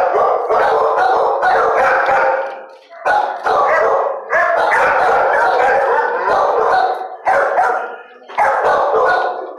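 Many dogs barking at once in a shelter kennel, a near-continuous din that eases briefly about three seconds in and again about eight seconds in.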